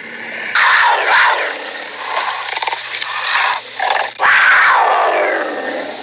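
Tiger snarling: two loud snarls, one starting about half a second in and another just past the middle that trails off, with quieter growling between them.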